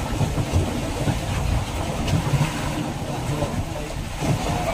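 A fishing boat's engine running steadily at sea, a low rumble mixed with wind and water noise.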